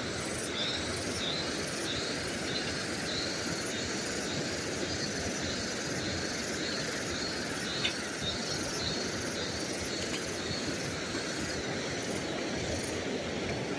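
Steady rush of fast-flowing river water, even and unbroken, with a faint chirp repeating about twice a second above it and a single sharp click about eight seconds in.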